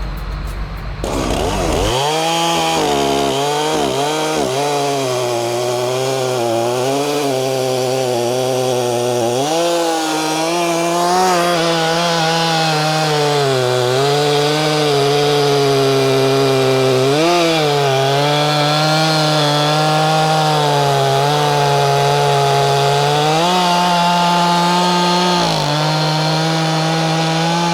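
Gasoline chainsaw running at high revs, starting about two seconds in. Its pitch sags and recovers again and again as the chain loads up in the wood.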